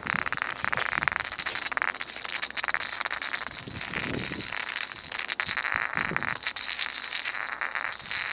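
Small ceramic cup spinning on rough stone paving: a continuous scraping rattle with many fine clicks, swelling and easing as it wobbles.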